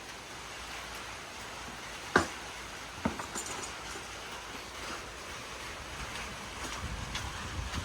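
Steady hiss of rain and wind, with two sharp taps a second apart about two seconds in, the first the loudest. Low wind buffeting on the microphone near the end.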